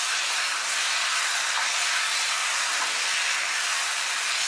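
Taro-stem greens and prawns sizzling in a frying pan with a steady hiss while being stirred with a wooden spatula, the dish cooking down until its water dries off.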